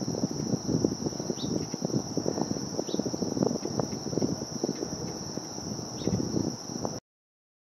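Steady high-pitched insect chorus, cricket-like, over a choppy low rumble, with three short high chirps. All of it cuts off suddenly near the end.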